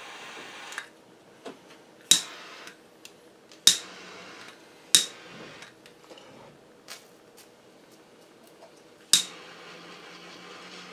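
Jet-flame torch lighter hissing, cut off within the first second, then four sharp loud clicks and a few fainter ticks spread over the following seconds.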